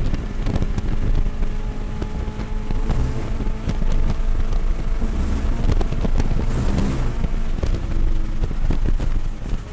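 Subaru BRZ's flat-four engine, fitted with an aftermarket header and exhaust, running at full throttle at high speed, shifting up into fifth gear right at the start and then pulling steadily, with wind noise in the cabin.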